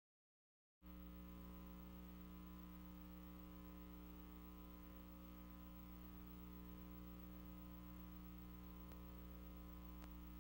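Faint, steady electrical mains hum with a buzzy edge, cutting in abruptly about a second in after dead silence. Two faint ticks near the end.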